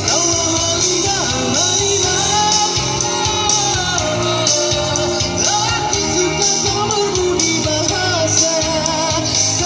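Live rock band playing loud through the PA, with a singer's voice over electric guitar.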